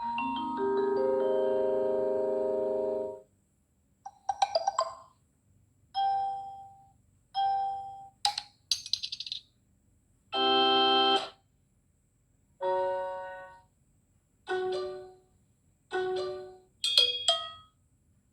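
Samsung Galaxy J3 Pro (2017) phone playing its notification tones one after another: after a sustained chord of about three seconds, about a dozen short electronic chimes of a few pitched notes each, each dying away and followed by a pause of about a second.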